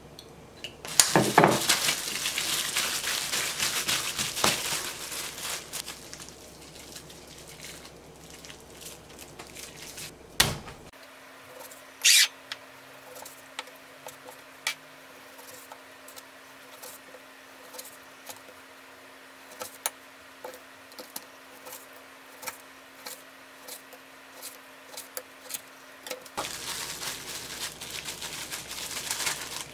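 Plastic bag crinkling as raw venison is handled in it. Then a kitchen knife slices venison on a cutting board, with short clicks of the blade reaching the board about once a second over a faint steady hum. Near the end the bag crinkles again as the slices go into it.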